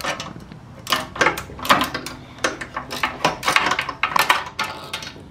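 Irregular metallic clicks, taps and clinks of a hand tool working on a fastener among the metal parts of a go-kart engine's fuel and throttle area.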